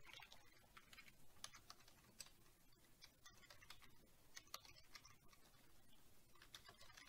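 Faint typing on a computer keyboard: scattered, irregular soft key clicks.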